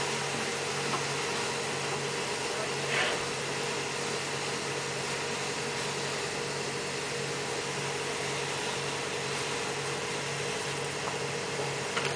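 Steady drone of machinery running, with a constant hum, and a brief clank about three seconds in.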